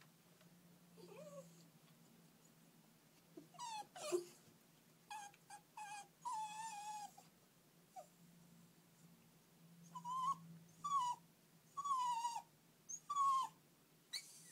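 Jack Russell Terrier puppy whining and whimpering: a string of high-pitched cries, mostly short and falling in pitch, with one longer drawn-out whine midway and a run of cries near the end. It is the distress whining of a puppy upset that its owners have left.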